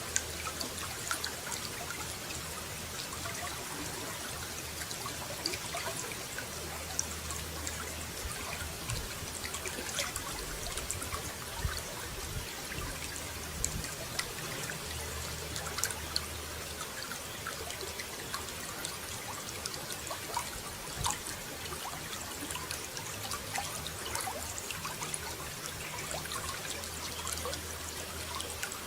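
Running water trickling and splashing steadily, with many small drips and splashes.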